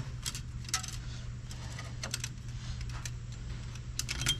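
Irregular light metallic clicks and clinks as a new shock absorber is pushed and worked onto its mounting on a truck's front suspension, the sharpest just before the end, over a steady low hum.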